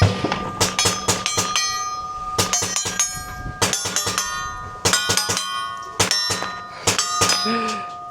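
Handgun shots fired at steel targets, many sharp reports in quick succession, with the steel plates ringing with a clang after hits.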